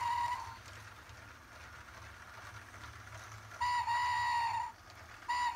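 Electronic sound effect from a LEGO Duplo app-controlled train: three steady horn-like tones, each about a second long, one at the start, one about four seconds in and one near the end, over a faint low hum.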